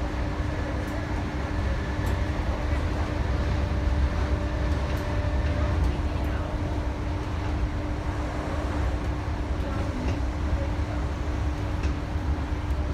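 Inside a train carriage: a steady low rumble of the train, with a constant hum over it.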